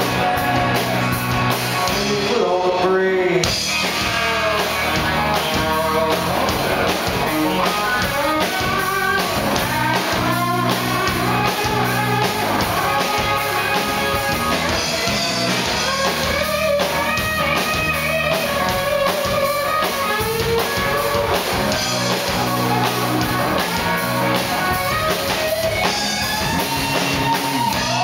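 Live rock band playing amplified: electric guitars, bass and drum kit with a bowed fiddle and a lead vocal.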